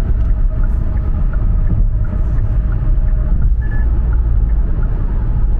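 Hyundai Casper driving at highway speed, heard from inside the cabin: a steady low rumble of its 1.0-litre three-cylinder engine and tyre noise. A brief faint high tone sounds a little past halfway.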